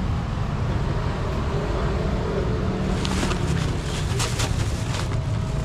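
Steady low engine rumble of street traffic, with scattered sharp clinks and clatter starting about three seconds in.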